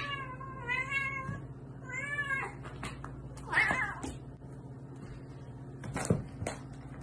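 Domestic cat meowing: two drawn-out, arching meows, then a shorter, rougher cry about three and a half seconds in. Two short knocks follow near the end.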